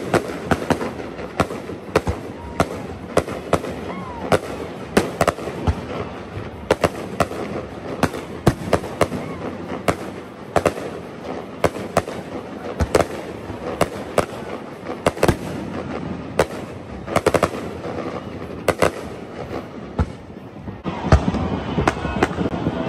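Fireworks display: aerial shells bursting in quick, irregular succession, several sharp bangs a second, a little louder near the end.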